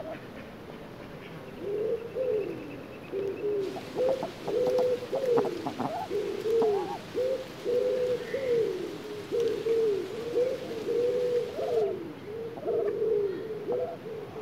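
A pigeon cooing over and over in a garden, a long run of short low coos.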